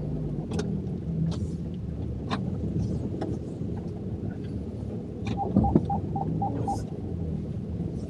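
Land Rover engine running steadily at low speed, heard from inside the cabin while reversing. About two thirds of the way in, the parking sensor gives a quick run of short beeps, about five a second, for just over a second. A few scattered clicks are heard as well.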